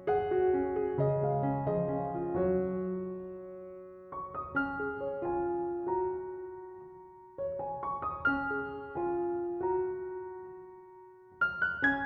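Background music: gentle piano playing slow phrases of struck notes that ring and fade.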